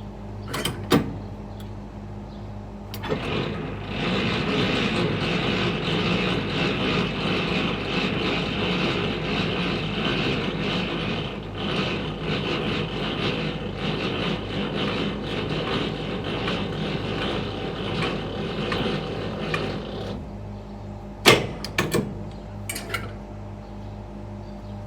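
Semi-trailer landing legs being wound up with the hand crank: a steady grinding rattle of the leg gearing for about sixteen seconds, with sharp metal clanks of the crank handle just before and a few after. An idling truck engine hums steadily underneath.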